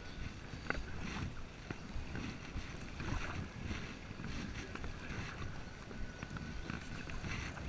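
Kayak paddling: a double-bladed paddle dipping and pulling through calm canal water, with small splashes and drips every second or two, over wind noise on the microphone.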